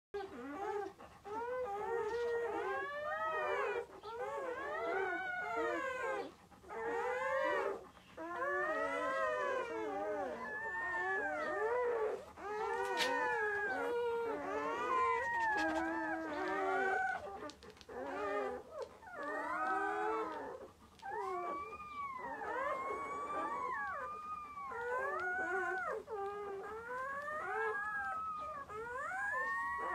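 Newborn German Shepherd puppies whining and squealing while nursing: many high, rising-and-falling cries overlapping one another almost without a break.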